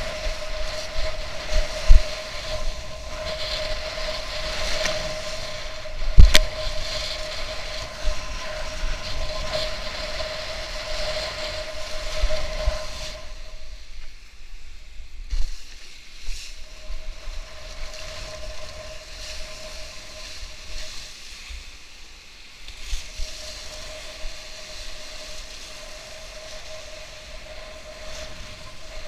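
Wind and rushing water on an action camera's microphone as a kitesurfer rides through choppy surf, with a steady thin whistle that drops out for a few seconds around the middle. Two hard knocks come in the first several seconds.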